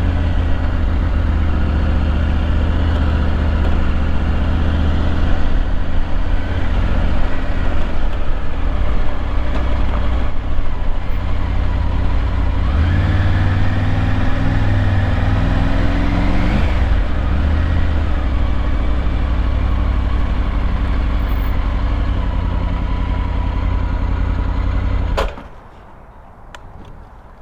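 Motorcycle engine running at low revs, rising in pitch for a few seconds partway through, then shut off suddenly near the end.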